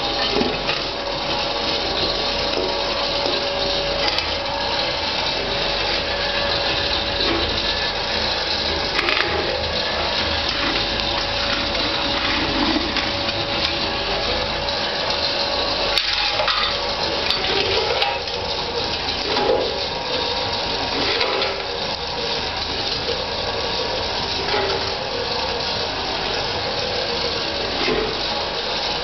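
Homemade electric-motor-driven jaw crusher running, its jaws crushing lumps of blacksmith's coke: a steady mechanical hum and rattle with scattered cracks and knocks as lumps break.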